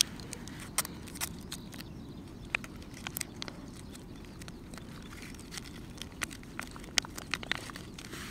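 Irregular little clicks and crinkles of a foil pouch of wet dog food being squeezed out into a paper bowl, with a puppy nosing at the food, over a steady low background noise.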